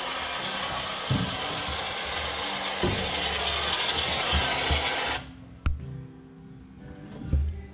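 Compressed-air cavity-wax spray gun hissing steadily as rust-proofing wax is blown through a flexible wand into a door cavity. It cuts off suddenly about five seconds in, followed by two knocks.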